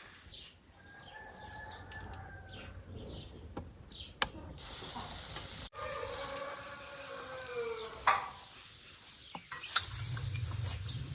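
A rooster crowing, the longer crow about five seconds in falling in pitch at its end, over a steady hiss.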